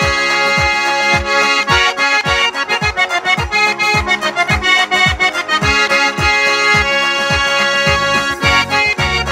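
Adyghe pshyne, a Circassian diatonic button accordion, playing a tune. A fast melody on the treble buttons runs over a steady low pulse about two to three times a second.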